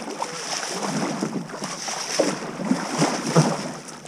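Kayak paddle strokes splashing in the water, a few short irregular splashes over a steady wash of moving water.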